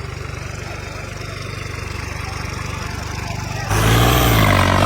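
Diesel engine of a heavy vehicle idling with an even rapid beat, then revved up hard and loud about three and a half seconds in.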